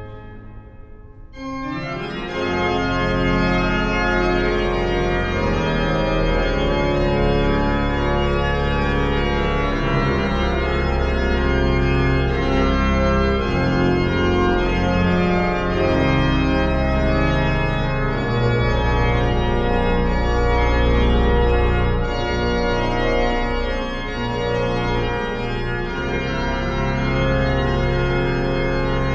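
The great 1714 Gottfried Silbermann pipe organ of Freiberg Cathedral playing sustained chords over deep bass notes in a reverberant church. After a short pause at the start, the playing comes back in about a second and a half in.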